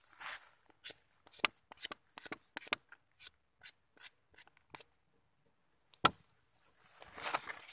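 Bolo knife chipping and scraping at a coconut palm trunk: a string of short sharp ticks, a brief pause, then one louder knock about six seconds in, followed by rustling near the end.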